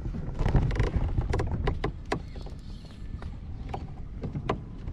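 Irregular clicks and knocks of an angler shifting and sitting down on a plastic fishing kayak, with gear being handled; a dense cluster of knocks in the first second, then scattered single clicks. Steady wind rumble on the microphone underneath.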